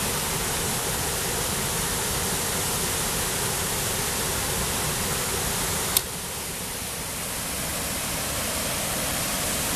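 Steady rush of a river waterfall and its rapids pouring over rock, with one sharp click about six seconds in.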